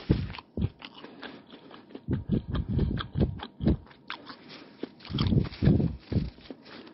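Close-miked chewing of an egg roll, then rapid crinkling and rustling of the paper wrapper as the next egg roll is picked up and handled, with soft thumps in between.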